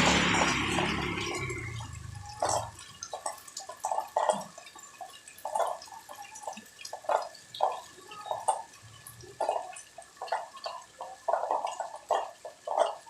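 Rainwater dripping into puddles: irregular plops, about one or two a second. A loud rush of water fades away over the first two seconds.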